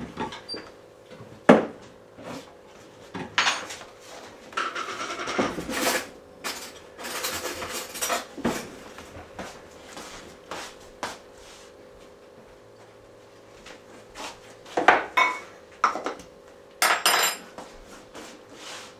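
Dishes and kitchen utensils being handled: scattered clinks and knocks of cups, spoons and bowls, with a few short scraping or rustling stretches while the yeast is measured and mixed. A sharp knock about one and a half seconds in is the loudest.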